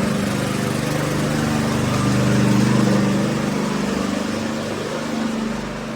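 Small portable inverter generator's engine running steadily in eco mode while carrying the house's load, a steady hum that swells a little in the middle and eases toward the end.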